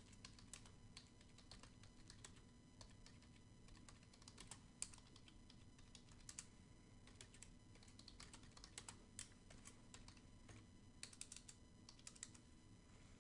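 Faint typing on a computer keyboard: runs of quick, irregular keystrokes with short pauses between them.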